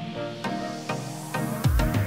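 Electronic background music with a regular beat. A rising sweep builds over the second half, and deep bass hits come in near the end.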